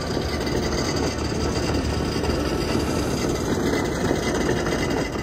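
Electric drivetrain of a large-scale RC crawler truck running steadily, its gears whirring while the bare front axle hub, with the wheel off, spins and grinds through snow.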